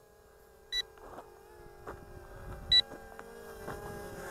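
Short high electronic warning beeps, one about every two seconds, signalling the L109 Pro drone's nearly flat battery, over the steady hum of the quadcopter's brushless motors and propellers, which grows a little louder about a second in.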